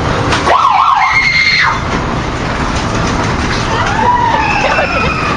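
Fair ride car rumbling along its rails. About half a second in there is a wavering high-pitched wail lasting about a second, and near the end a few high falling glides.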